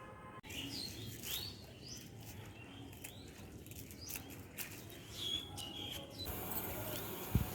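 Small birds chirping: many short, quick chirps that bend up and down in pitch, with a single thump near the end.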